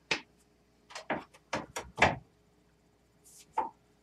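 Handling noises from a reflector telescope tube being shifted in its loosened tube rings on an equatorial mount: a quick series of knocks and scrapes over the first two seconds or so, the loudest about two seconds in, and another knock near the end.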